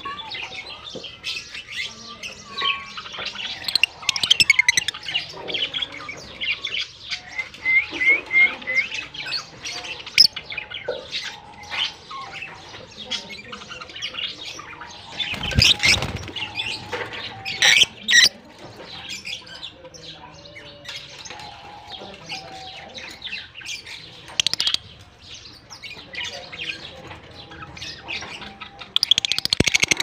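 Caged lovebirds chattering, a dense run of short high chirps and squawks with a quick burst of repeated notes about a quarter of the way in. A single thump about halfway through.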